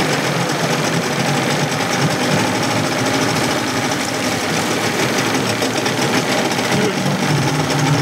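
Suzuki DT-25 two-stroke outboard running steadily on a test stand, with a fast, even rattle. The owner thinks it is not running as smoothly as it should.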